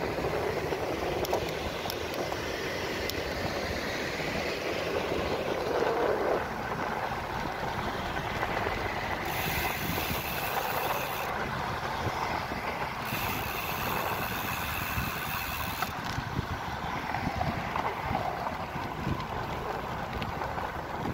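Road traffic passing close by, mixed with wind rushing over the microphone of a moving bicycle. There are two stretches of brighter hiss in the middle, a couple of seconds each.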